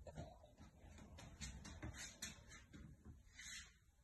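Near silence with faint, irregular taps, soft thumps and a brief rustle: footsteps and phone handling as the person walks along the toilet-roll trail into the bathroom.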